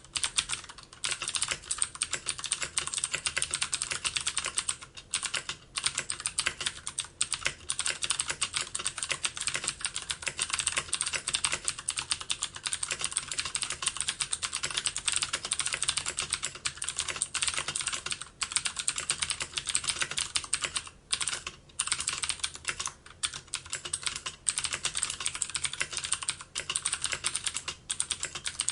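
Computer keyboard being typed on fast and continuously, a dense stream of key clicks with a few brief pauses.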